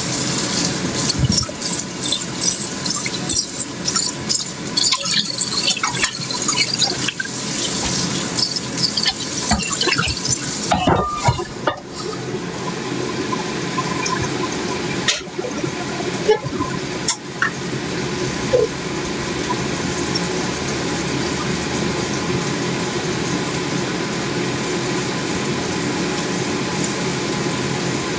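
Steady rush of running water, like a kitchen tap running into a sink, with scattered clicks and knocks of utensils or dishes in the first half.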